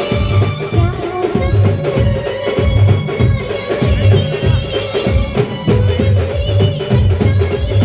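A live band playing a melody over a steady heavy drum beat, about two beats a second, with quick, evenly spaced high ticks on top.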